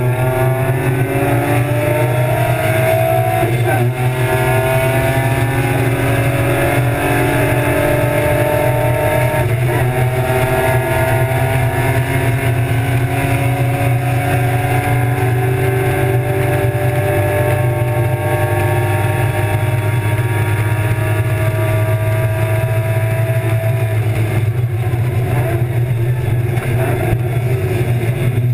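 BMW E36 325's M50 straight-six race engine at full load, heard from inside the cabin, its pitch climbing slowly through long pulls with brief breaks about four and ten seconds in. A steady low drone runs underneath.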